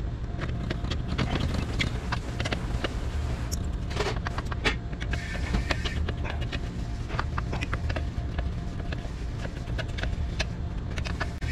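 Screwdriver clicking and scraping on the mounting screws and sheet-metal bracket as a new air-conditioner condensing fan motor is screwed into place. The clicks come irregularly over a steady low background hum.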